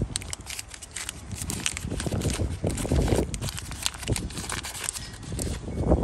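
Paper wrapper crinkling and crackling as fingers peel it off a small metal part, over wind rumbling on the microphone.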